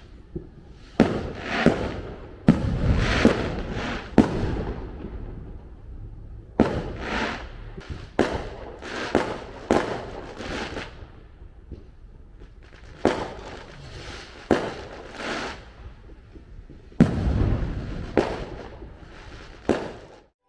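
Fireworks going off in an irregular string of sharp bangs, each followed by a fading crackle. The bangs come in clusters, with brief lulls around six and twelve seconds in.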